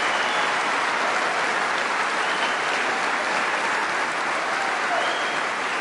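Audience applauding, a steady dense clapping that eases off slightly toward the end.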